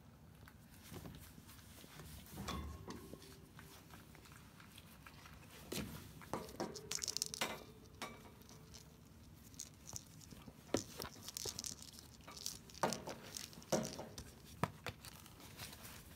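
A kitten playing in a wire pen, batting a ball toy hanging on a string and scrambling on the bedding. The sound is irregular soft taps, knocks, rustles and light clinks, busiest from about six seconds in.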